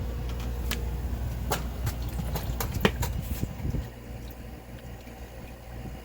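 A run of light clicks and knocks from handling the just-removed sump pump, over a low rumble that stops about four seconds in.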